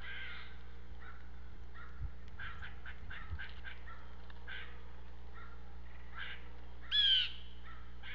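Wild birds calling outdoors in winter: a scatter of short chips and calls, then one loud, harsh call with a falling pitch about seven seconds in, under a steady low hum.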